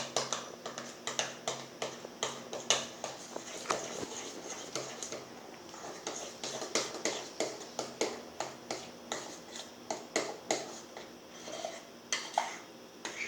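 A utensil stirring a thick mix of white glue and shaving foam in a container, knocking and clicking against its sides a few times a second in an uneven rhythm.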